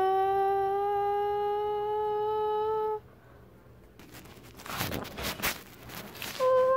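A person's voice holds one long hummed note, rising slowly in pitch, and cuts off about three seconds in. A short burst of rustling follows, then a second short hummed note near the end.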